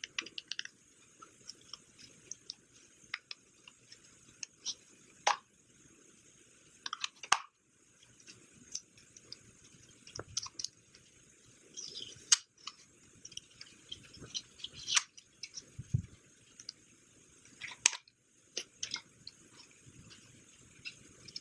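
Hands handling a DJI Mavic Air 2 drone's plastic body, arms and gimbal guard: scattered taps, clicks and rustles, with a few sharper clicks.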